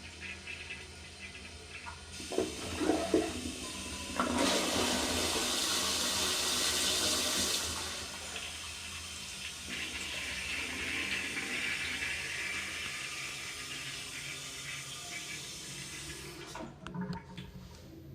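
TOTO Western-style toilet being flushed: a few clacks about two seconds in, then a loud rush of water for about three and a half seconds. The tank then refills with a softer steady hiss of water that cuts off suddenly near the end as the fill valve shuts.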